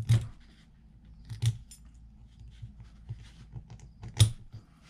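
Sharp metallic clicks and clinks as a metal retaining clip is worked onto the bottom groove of a 7.3 Powerstroke HEUI injector: a few distinct clicks, the loudest about four seconds in, with fainter ticks between.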